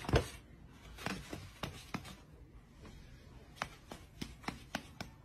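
Faint, irregular light taps and scratchy rustles: a cat shifting and pawing on a woven scratcher pad while batting at a person's hand.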